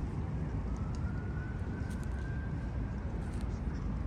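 Steady low rumble of distant traffic, with a faint high tone that rises slightly and fades over about two seconds, and a few soft clicks.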